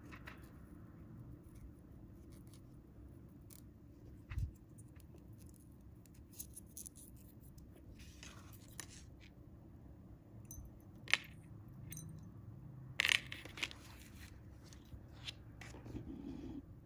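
Hands handling a small fishing rig on paper, metal hooks with plastic beads, braided line and a coiled-wire spring feeder, making faint scattered clicks, taps and rustles, with a few sharper clicks past the middle.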